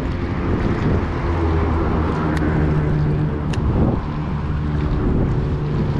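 An engine running steadily, with wind buffeting the microphone and two sharp clicks about two and a half and three and a half seconds in.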